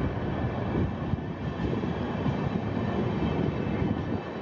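Passenger train's coaches rolling past close by: a steady low rumble of wheels on the rails with a rapid, irregular clatter.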